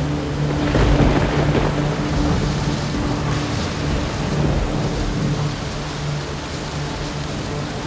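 Heavy rain falling, with a low rumble of rolling thunder that swells about a second in, over a faint steady low hum.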